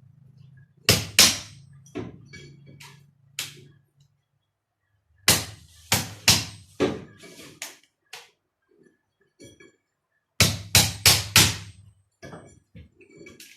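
Hammer blows, sharp and ringing, in three bursts of three or four strikes each, with pauses between them.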